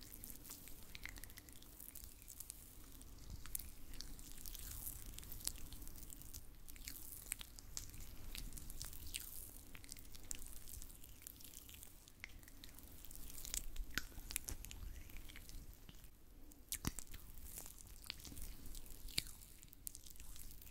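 Oiled gloved hands rubbing and massaging close to the microphone: soft wet, sticky squishing with many small clicks.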